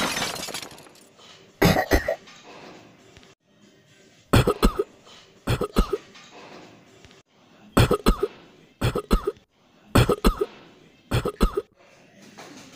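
A person coughing in about seven short fits, each of two or three quick coughs, a second or two apart. A ringing sound effect fades out at the very start.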